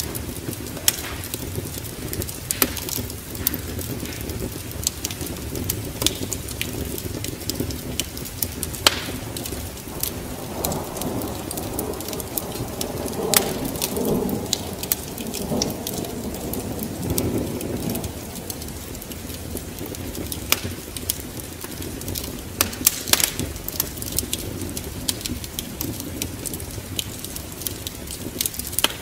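Wood fire crackling with frequent sharp pops over a steady hiss of rain. A rolling rumble of thunder swells in the middle for several seconds, then fades.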